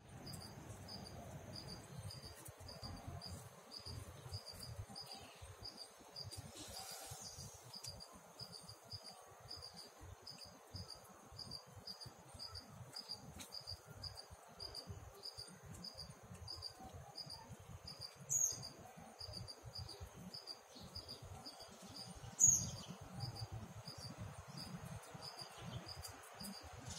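Faint, even insect chirping, about two to three short pulses a second, over a steady high trill, typical of crickets. Two short, louder chirps stand out about two-thirds of the way through and again a few seconds later.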